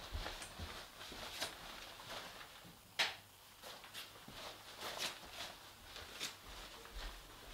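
Footsteps of a person walking through a house, a run of soft, irregular steps, with one sharper knock about three seconds in.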